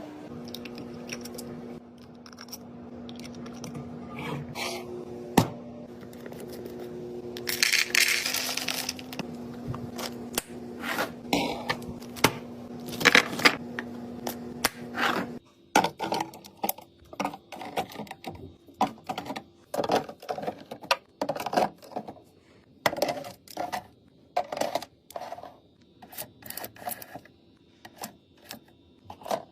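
Small hard items clinking, tapping and knocking as a mini fridge is restocked, with a brief rustle or crinkle partway in. A steady hum runs under the first half and cuts off suddenly about halfway through.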